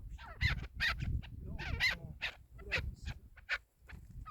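Chukar partridge calling: a run of short, sharp notes, about two a second, over a low rumble.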